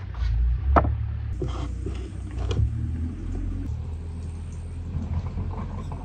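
A steady low rumble with a few sharp knocks of metal cookware set down on a wooden table, the loudest about a second in.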